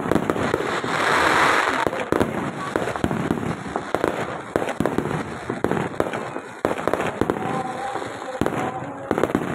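Fireworks going off in quick succession: a dense run of sharp bangs and crackling pops, with a loud hissing burst about a second in.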